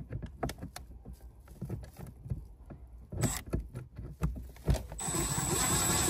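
Light clicks and taps of a bolt and a plastic cover being handled. About five seconds in, a cordless power driver starts running steadily with a thin high whine, spinning a 7 mm bolt in, after a brief blip of it a couple of seconds earlier.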